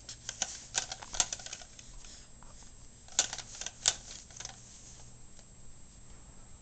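Irregular sharp clicks and light knocks, loudest twice about a second in and twice around three to four seconds in, then thinning out.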